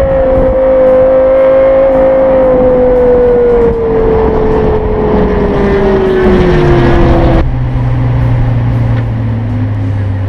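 Lexus LFA's 4.8-litre V10 engine note falling steadily in pitch as the revs drop for about seven seconds. It then cuts abruptly to a low, steady engine hum.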